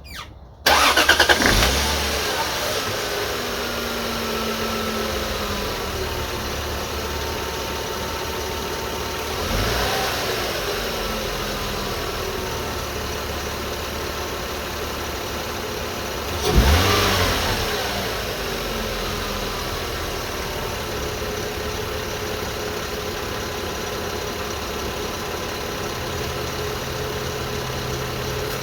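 2002 Lexus IS300's 2JZ-GE straight-six starting from cold, catching about a second in and settling to a steady fast idle, revved briefly twice, at about ten and seventeen seconds. A steady whine runs over the engine, which persists after a new timing belt and water pump; the owner wonders whether it could be the oil pump or the alternator.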